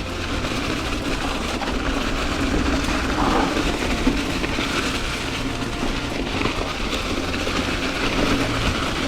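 Ibis Ripmo V1 mountain bike descending fast over a rocky, leaf-covered trail: a steady rolling rumble and rattle of tyres and frame.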